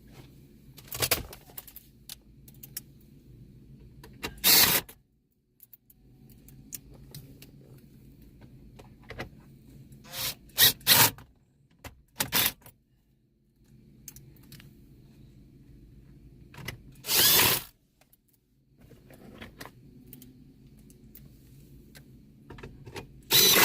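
Cordless drill/driver driving Phillips screws in short bursts, each under a second, about five times a few seconds apart.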